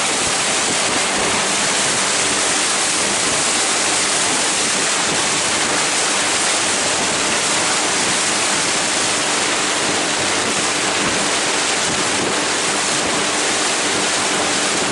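Steady rushing noise of wind and sea water on a boat, with faint steady low tones underneath.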